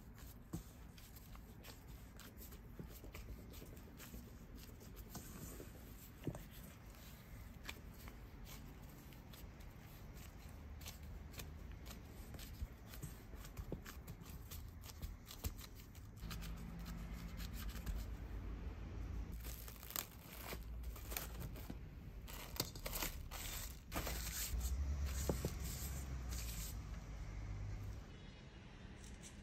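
Hand in a plastic glove kneading crumbly pastry dough in a stainless steel bowl: soft squishing, glove crinkling and small knocks against the bowl. About halfway through it gets louder, with crackling and tearing of plastic cling film as it is pulled off and stretched over the bowl.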